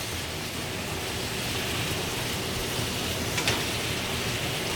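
Zucchini and grape tomatoes sizzling steadily in a frying pan, with one light click of a utensil about three and a half seconds in.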